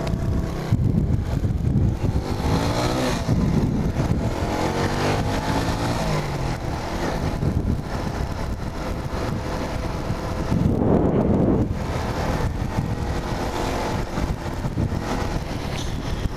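Motorcycle engine running on the road, its pitch climbing and dropping several times with the throttle, louder for a moment about eleven seconds in.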